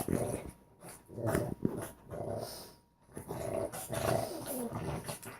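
Dogs play-growling in three bursts while they wrestle.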